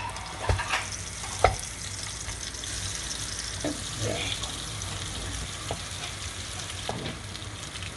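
Terasi (fermented shrimp paste) frying in hot oil in a pan: a steady sizzle, with a few light knocks from stirring.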